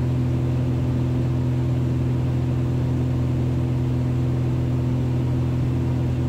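Cessna 182's piston engine and propeller droning steadily in cruise-descent power, heard inside the cabin as an even, low hum.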